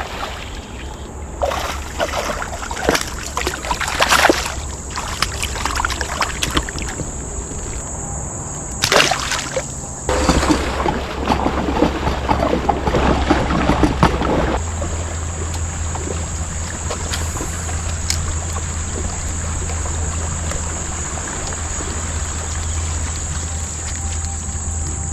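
Water splashing and sloshing at the side of a kayak, with scattered knocks and splashes in the first half. After that it settles into steadier water noise.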